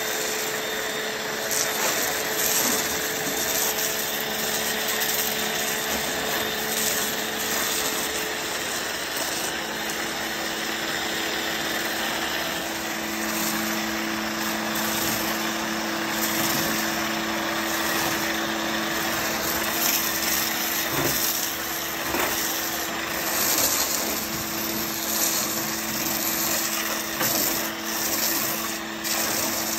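Greenworks 1600 PSI electric pressure washer running with a steady motor hum while its foam cannon hisses out a spray of foam. The hum changes pitch about nine seconds in.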